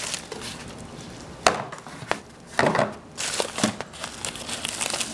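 Packaging crinkling and rustling as a parcel is handled and opened, with a sharp click about a second and a half in and a few louder knocks and rustles after it.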